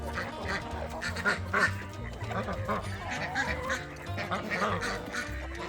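Farm birds calling repeatedly over background music.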